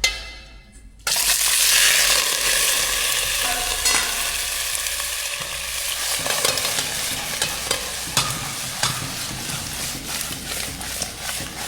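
Pork ribs going into hot oil in a pot about a second in, then sizzling loudly with scattered spattering pops.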